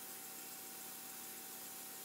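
Faint steady hiss with a thin, steady hum underneath: background noise with no distinct events.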